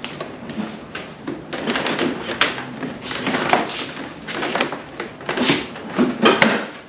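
Irregular knocks, clicks and scrapes of parts and hardware being handled and fastened as a front splitter is mounted under a car's front bumper.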